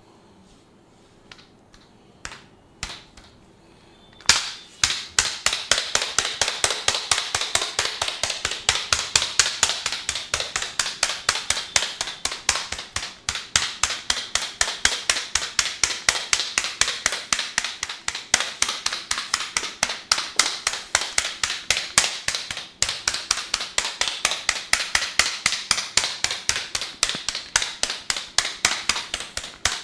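Percussive massage strokes: a few scattered taps, then about four seconds in a fast, even run of sharp slapping taps, about five a second, with brief pauses now and then.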